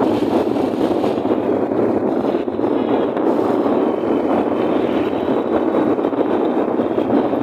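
Steady, loud wind noise rushing over a phone's microphone while riding a moving motorbike, with the ride's road and engine noise buried in it.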